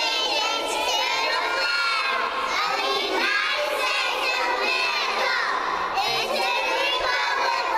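A class of young children's voices chorusing loudly together in unison, with a teacher's voice among them.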